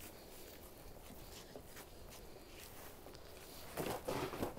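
Faint clicking and handling as a new nozzle is fitted onto a pump sprayer's wand. Near the end come louder, irregular rustling and footsteps.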